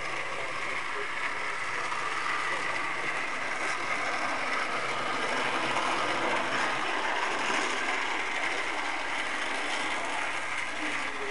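Electric model train running on the layout's metal track: a steady whirring rattle of the locomotive motors and the cars' wheels, a little louder midway.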